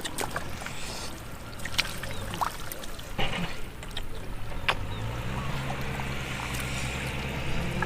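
Muddy water splashing and trickling as hands feel through it for fish, with scattered small clicks and splashes. A low steady hum comes in about five seconds in.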